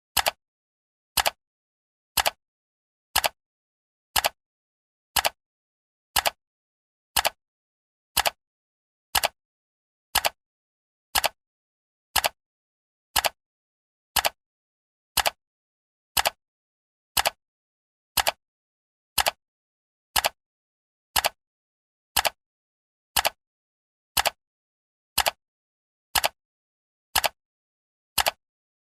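Clock-style ticking of a countdown timer: one sharp tick every second, evenly spaced, with silence between ticks.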